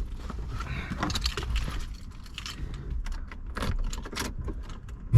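A bunch of keys jangling and clinking, with irregular clicks and knocks of handling and a low rumble underneath.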